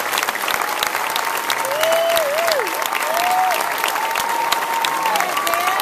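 Audience applauding: dense, steady clapping, with a few long sliding calls heard over it.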